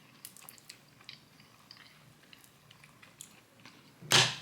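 Quiet chewing with small mouth clicks as someone eats a cookie, with a short loud burst of noise near the end.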